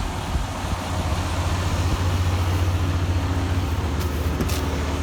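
Semi-truck's diesel engine running with road noise while driving: a steady low drone under a wash of noise, with a few brief faint rattles about four seconds in.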